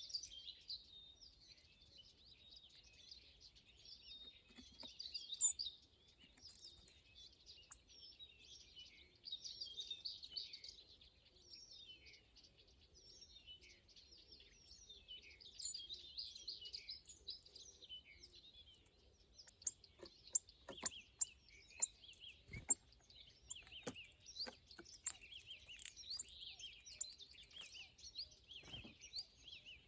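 Small birds chirping and twittering in quick, overlapping calls. From about two-thirds of the way in, a run of sharp clicks or taps comes in among the chirps.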